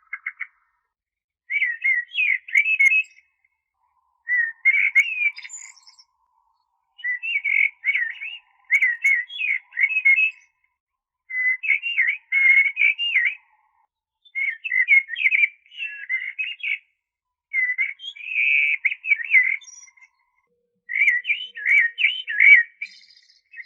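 Blackbird singing: about nine short, warbling phrases of quick, changing notes, each lasting a second or two, with a brief pause between phrases.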